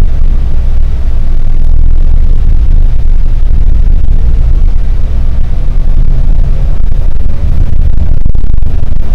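Steady, loud low rumble of a bus under way, heard from inside the cabin: engine and road noise with no distinct events.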